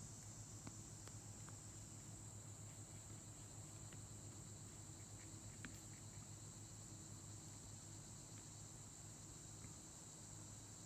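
Faint, steady, high-pitched chorus of insects such as crickets, with a few soft ticks scattered through it.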